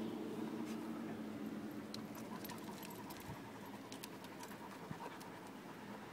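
A mastiff panting, with scattered light clicks and scrapes of its paws on bare rock from about two seconds in.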